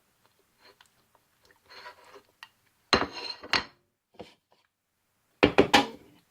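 Dishes and cutlery clinking and knocking on a countertop. There are two sharp knocks about three seconds in and a quick cluster of three or four near the end, with a few faint handling sounds before them.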